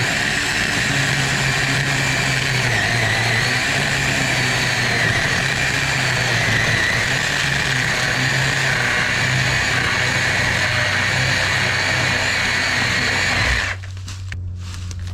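Cordless chainsaw running steadily with a constant whine as it cuts into a fallen tree trunk, then cutting off suddenly near the end.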